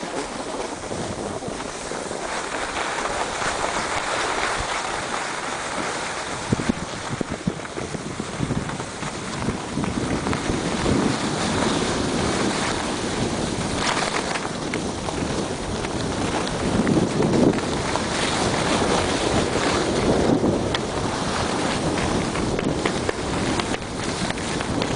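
Wind rushing over the microphone of a camera carried by a skier going downhill fast, mixed with the hiss and scrape of skis carving on packed snow, swelling and easing with the turns.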